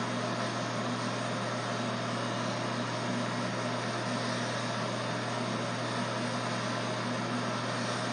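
Corded electric hair clippers running with a steady buzz as they are worked over a close-cropped scalp.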